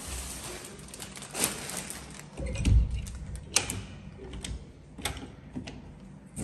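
Handling and walking noises: scattered sharp clicks and knocks, with a loud low thump about two and a half seconds in, as an interior door is reached and opened near the end.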